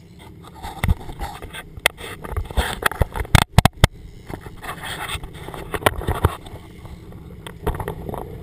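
Irregular sharp knocks and clatter on a fishing boat's deck over a steady wash of wind and sea, with a brief dropout about three and a half seconds in.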